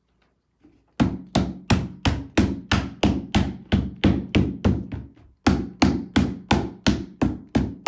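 Rubber mallet striking a plastic chick brooder wall panel again and again, about three blows a second, with a short pause about five seconds in. The blows drive the wall's pegs into their holes to lock the sections together.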